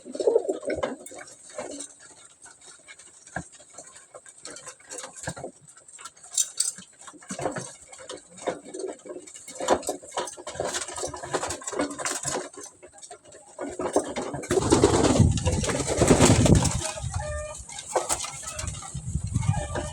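Domestic pigeons cooing in a loft at feeding time, with many short scattered clicks and a louder rushing burst of noise about fifteen seconds in.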